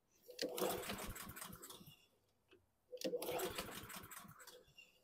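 Two pulls on the recoil starter of a Honda GCV160 lawn mower engine, each a fast clattering crank lasting about a second and a half that spins down without the engine catching. It will not start even after a shot of starter fluid, a sign of the carburetion trouble the owner is chasing.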